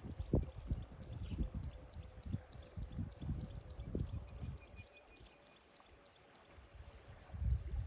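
A high chirp repeating evenly, about three times a second, in outdoor ambience, over low irregular rumbling that fades away about five seconds in and returns near the end.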